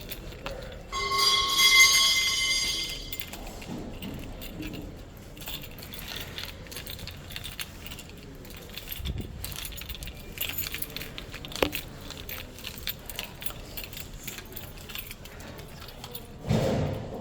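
A ringing metallic tone with several overtones about a second in, lasting about two seconds as it dies away, then scattered clinks and knocks of objects being handled, and a dull thump near the end.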